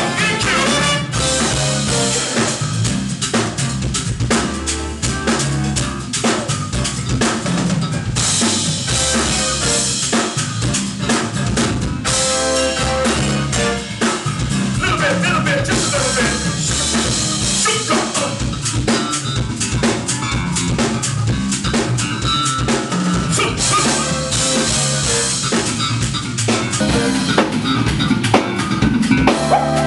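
Live band playing through the club's PA, with the drum kit loudest: snare, rimshots and kick drum over a steady bass line.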